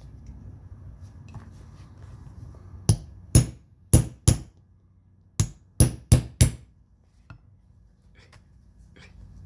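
Hammer striking a punch to knock an old snap out of a leather vest over a drilled metal block: eight sharp strikes in two quick groups of four.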